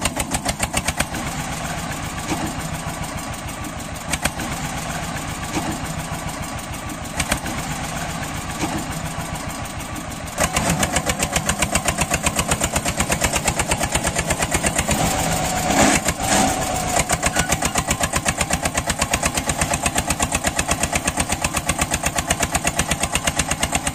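Small engine of a homemade mini tractor running with a fast, even chugging beat. It gets louder about ten seconds in, and there is a short louder clatter about two-thirds of the way through.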